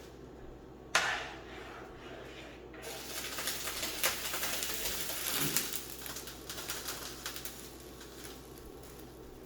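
Kitchen cookware noise: a sharp knock with a short ring about a second in, then a few seconds of busier clattering noise with small clicks, which fades back to a quiet background.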